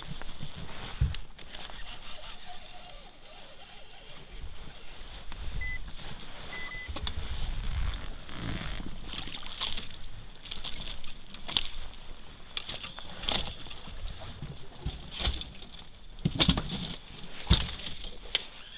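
Water sloshing and splashing against a small boat, with irregular sharp slaps and knocks every second or two.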